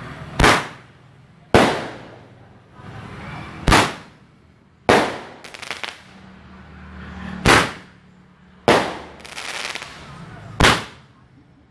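Fireworks going off: a string of about eight sharp bangs about one to two seconds apart, some followed by a short hiss.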